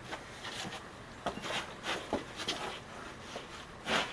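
Scattered light clicks and knocks of metal hand tools being handled, a socket and breaker bar being fitted before a bolt is pulled, with a louder knock near the end.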